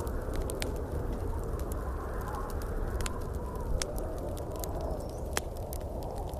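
Wood fire crackling in a fireplace, with frequent sharp pops and snaps over a steady low rush of storm wind.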